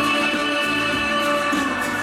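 Recorded pop music played loudly over the hall's sound system, continuous with a steady beat.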